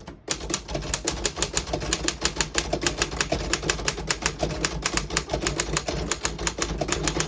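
1937 Royal KHM manual desktop typewriter being typed on at a fast, even pace, the typebars clacking against the platen about six times a second with no pause.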